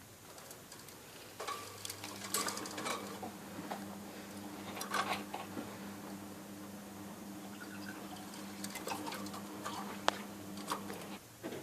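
Budgies moving about in their bath, with scattered clicks and short splashy rustles, over a steady low hum that starts about two seconds in and cuts off just before the end.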